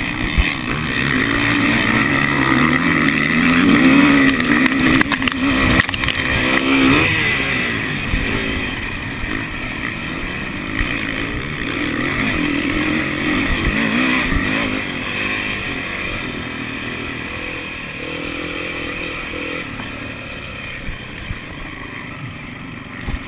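Dirt bike engine revving up and falling off again and again as it is ridden round a motocross track, heard close up from the handlebars. It is loudest early on and runs lower and quieter over the last several seconds.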